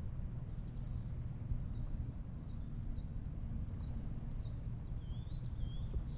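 A bird chirping faintly, with short, high, down-slurred notes repeating from about two seconds in, over a steady low rumble.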